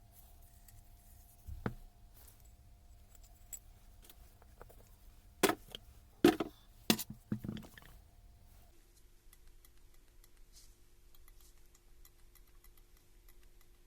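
Handling noise of tool parts and hand tools on a workbench. A light knock comes about a second and a half in, then a quick run of five or so sharp clacks between five and eight seconds in.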